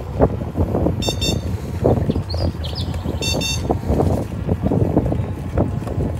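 Wind buffeting the microphone and rumble from riding an electric scooter along a footpath, with many small bumps. Two short bursts of rapid electronic beeping come about a second in and again about three seconds in.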